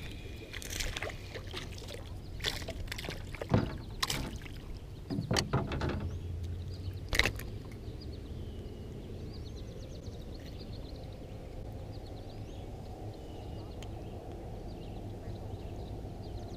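Scattered knocks, clicks and rattles of handling a fishing rod and a freshly caught small bass inside a small boat. Later, birds chirp faintly over a steady low background.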